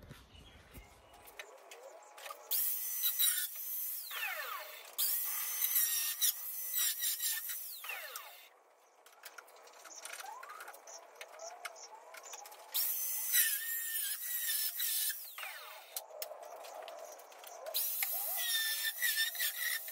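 Handheld angle grinder cutting through the sheet steel of a car's rear window filler panel in about four spells of a few seconds each. The motor pitch rises and falls as the disc bites, with short pauses between the cuts.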